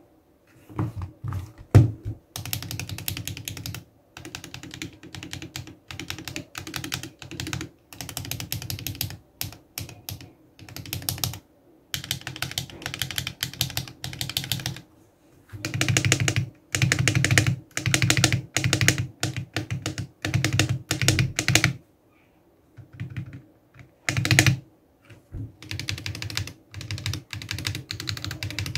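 Stabilizer test on a custom 60% mechanical keyboard: the long stabilized keys are pressed and released repeatedly. The keyboard is a Gamakay K61 case fitted with Everglide Panda stabilizers, Akko CS Radiant Red linear switches and PBT Cherry-profile keycaps. The keystrokes come in quick runs of clacks, each a second or a few seconds long, with brief pauses between them.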